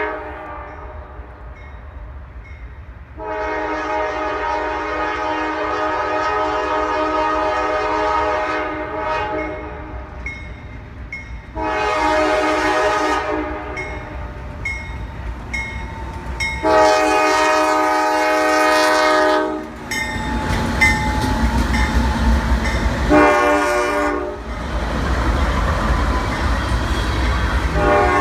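A Norfolk Southern freight train's lead GE diesel locomotive sounds its chime horn in a series of separate blasts, long and short, as it approaches a grade crossing. From about 20 seconds in the locomotives pass close by with a loud, deep engine rumble and wheel noise, the horn still blowing in short and long blasts over it.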